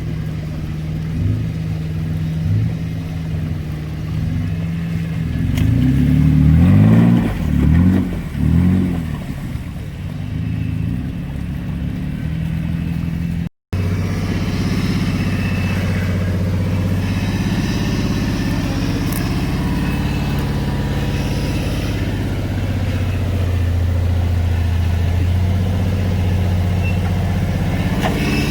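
Off-road vehicle engine running, revved up and down a few times about a quarter of the way through. After a brief dropout near the middle, an engine runs steadily.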